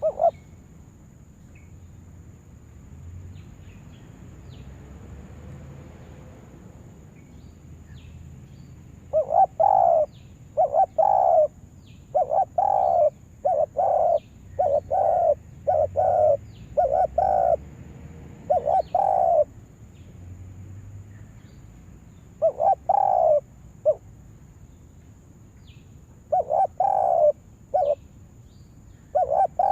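Spotted dove cooing, a decoy bird calling: a long series of short, repeated coos in quick phrases that starts about nine seconds in, then a few shorter phrases later.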